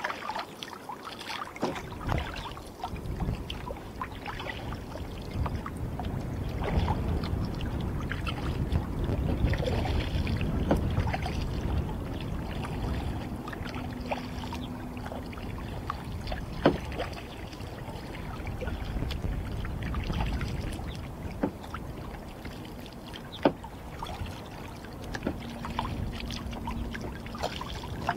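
Kayak being paddled on open water: paddle strokes and water sloshing and lapping around the boat, with two sharp knocks in the second half.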